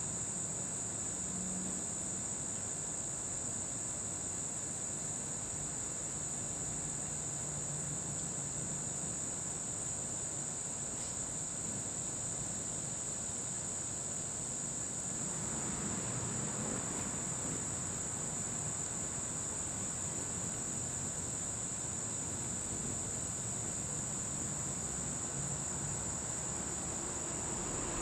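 Crickets trilling in a steady, continuous high-pitched chorus. A soft rush of broader noise swells briefly just past halfway.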